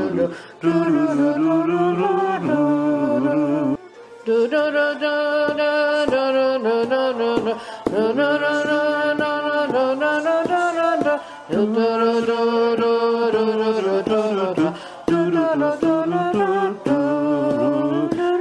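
Music for folk dancing: a melody moving in steps over a sustained accompaniment, with a short break about four seconds in.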